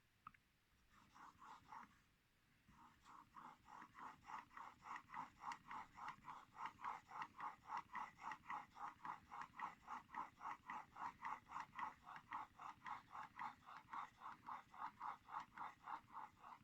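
Kanna plane blade held in a honing jig being pushed back and forth on a 4000-grit waterstone: steady rhythmic scraping strokes, about three a second, raising a burr on the back of the edge. A few strokes come about a second in, then a short pause before the long even run.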